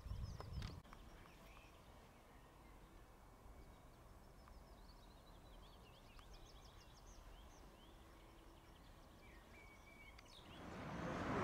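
Faint birdsong: quick series of high chirps and a short whistle over a quiet low background. A brief low thump comes at the very start, and a rising rush of noise swells in near the end.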